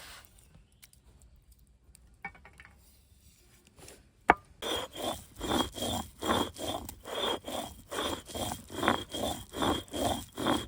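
Spice masala being ground by hand on a stone grinding slab: rhythmic back-and-forth scraping strokes, about two a second, starting about halfway in after a single sharp click.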